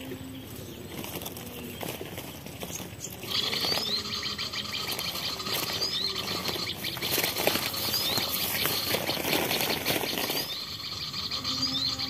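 Bird-call lure recording played from a speaker, coming in about three seconds in: fast, continuous high chirping with short rising notes repeated every second or two, used to draw small birds to the trap.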